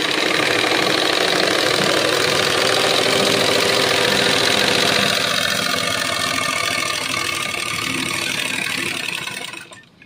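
Motor-driven Romeo sewing machine running fast, its needle bar clattering in a quick even rhythm as it stitches a straight seam through cotton cloth. It stops abruptly near the end.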